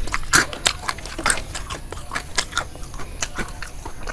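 Close-up chewing and crunching of crispy deep-fried frog in a corn-flour batter: irregular sharp crunches, several a second, thinning out toward the end.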